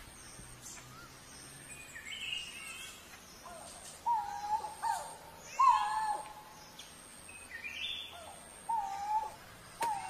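Coral-billed ground cuckoo calling: several short hooting notes that drop slightly in pitch, at uneven gaps, with higher bird notes among them.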